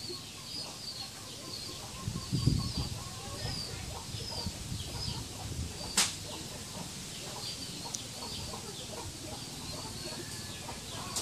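Domestic chickens clucking softly, with small high chirps repeating throughout. There is a brief low thumping about two seconds in and a sharp click about six seconds in.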